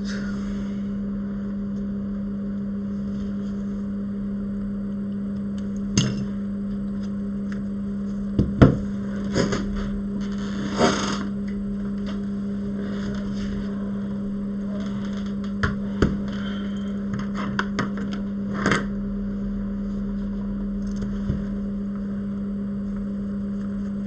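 Steady electrical hum, with about a dozen light clicks and taps of small tools and parts scattered through the middle, as an iPhone 7 is taken apart by hand.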